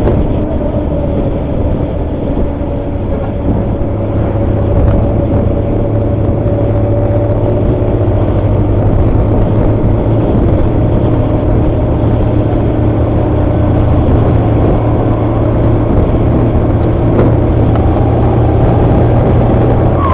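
Diesel engine of an ALS intercity bus, heard through its Bogor-built aftermarket exhaust, running steadily: a deep drone with a steady whine held above it.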